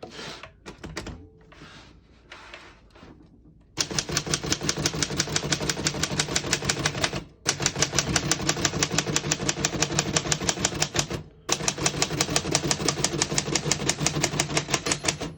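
1936 Corona Standard portable typewriter's keys struck in a rapid, evenly spaced run that starts a few seconds in after some quiet handling, with two short breaks. The margin bell dings near the end as the carriage reaches the end of the line.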